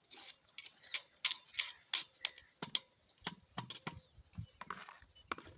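A rapid, irregular run of sharp clicks and knocks as a Bluetooth speaker is hauled up a borewell on its rope.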